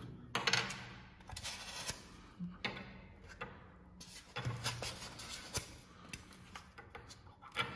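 Styrofoam packing insert rubbing and scraping in the hands as black plastic tweeter mounting rings are pushed out of it, with several sharp plastic clicks along the way.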